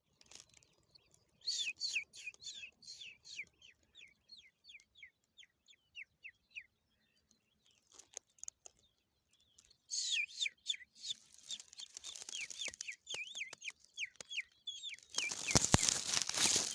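Skylarks chirping: two runs of quick, short falling chirps, about four a second, each run fading out. A loud rustling noise comes near the end.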